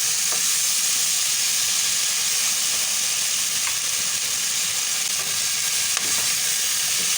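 Boiled chicken feet sautéing with garlic, onion and tomato in a pan, sizzling steadily, with a few faint clicks of the pan.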